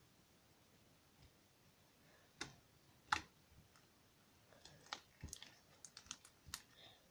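Homemade white-glue-and-detergent slime being squeezed and kneaded by hand, giving faint, sharp little clicks and pops. There are two single pops about two and three seconds in, then a quicker, irregular run of them from about four and a half seconds in.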